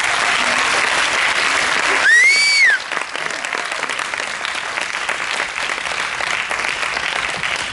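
An audience applauding after a song in a school musical, with steady dense clapping. About two seconds in, one high call from the crowd rises and falls. The clapping dies away near the end.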